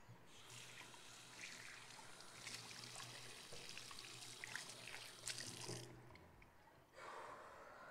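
Faint running or trickling water with small splashes, stopping about six seconds in, over a low steady hum.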